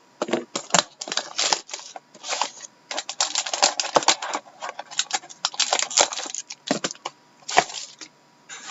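A sealed box of trading cards being opened by hand: irregular crackling of plastic wrap and cardboard with quick clicks and rustles, busiest in the middle.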